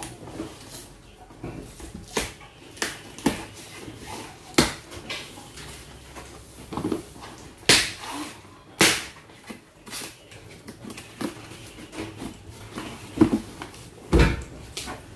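Cardboard laptop box being handled and pried open by hand: a run of scattered scrapes, rustles and clicks, with two sharp cracks about eight and nine seconds in and a heavy thump near the end.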